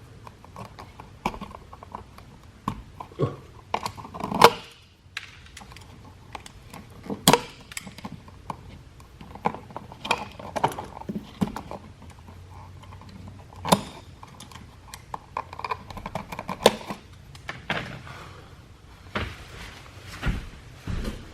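Scattered clicks, taps and small scrapes of hand tools handling electrical wiring, with a few sharper knocks about 4, 7 and 14 seconds in.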